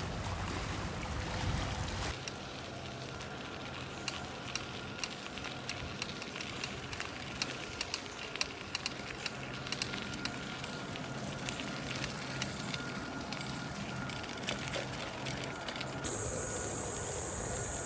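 A worn rental mountain bike rattling as it rolls over a dirt and gravel trail, with many small clicks and knocks. For the first two seconds there is a windy rush by the water, and a steady high hiss comes in near the end.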